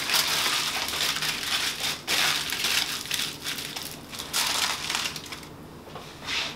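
Aluminium foil crinkling and crumpling as it is wrapped and pressed around a potato. It dies down near the end, with one last short crinkle.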